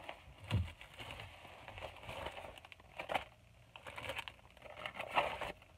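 Thin plastic gift bag crinkling and rustling in short, irregular spells as it is handled and items are packed into it.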